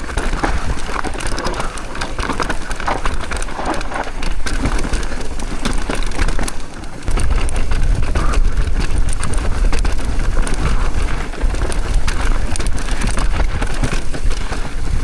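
Mountain bike descending a loose, dusty dirt trail: tyres rolling and skidding over dirt and rocks, with many small clicks and rattles from the bike, and wind buffeting the microphone, heavier from about halfway through.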